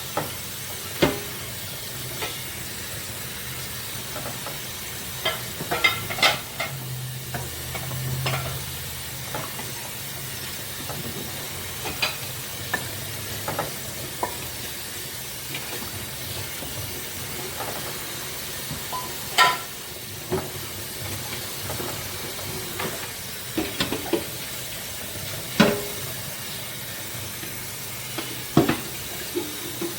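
Dishes being washed by hand in a sink: plates and cutlery clinking against each other every few seconds over a steady hiss of water.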